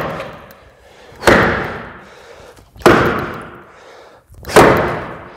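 Axe strikes biting into a log under a wood chopper standing on it: three heavy chops about a second and a half apart, each dying away with a long echo.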